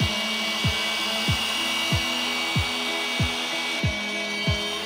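Background music with a steady kick-drum beat, about one and a half beats a second, over sustained chords. Under it is the faint steady whirr and rub of a dual-action polisher working compound on the inner barrel of a wheel rim.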